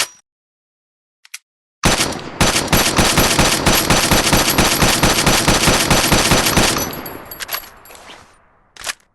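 Automatic gunfire: one long continuous burst of rapid shots starting about two seconds in and lasting about five seconds, then dying away, with a single sharp report near the end.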